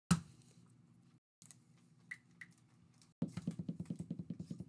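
A sharp click, two faint ticks, then a rapid run of ticks, about a dozen a second, lasting about a second and a half near the end: the sound of a giveaway randomizer being run to draw a winner.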